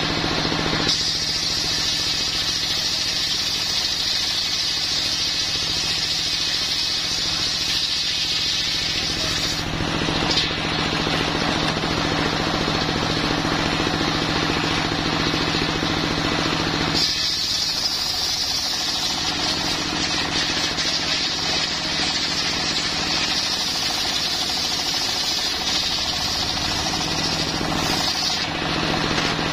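Homemade circular-saw sawmill driven by a single-cylinder diesel engine: the engine runs steadily with a rapid chattering beat while the large blade rips along a coconut-wood log. A high whine from the blade in the wood fills two long cuts, one from about a second in to about ten seconds, the other from the middle to near the end, with the blade spinning free between them.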